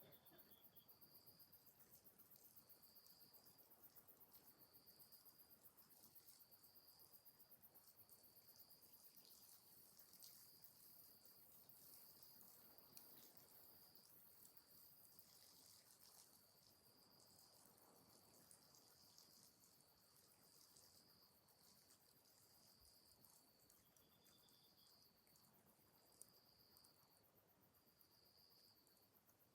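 Faint insects chirping: a short high chirp repeating about every second and a bit over a steady fine high trill, with a few soft ticks.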